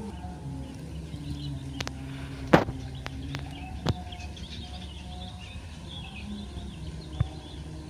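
Birds chirping over a steady low outdoor hum, with a few sharp clicks, the loudest about two and a half seconds in.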